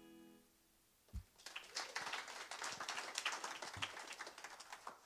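The last acoustic guitar chord fades out. About a second later a small audience starts clapping and applauds for nearly four seconds.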